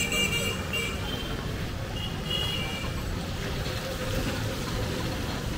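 Wet-street traffic ambience: a steady low hum of passing vehicles and tyres on the wet road, with short high-pitched beeps near the start and again about two seconds in.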